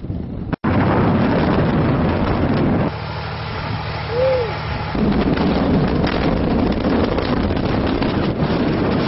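Rumble of an open-pit mine blast: a loud, continuous noisy rumble, strongest in the low end, that starts abruptly just under a second in. It drops in level for about two seconds in the middle, where a brief rising-and-falling tone sounds, then comes back up.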